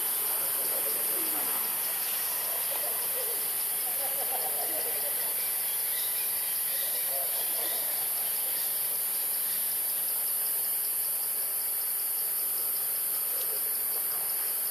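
Steady high-pitched drone of forest insects, with faint wavering calls coming and going underneath.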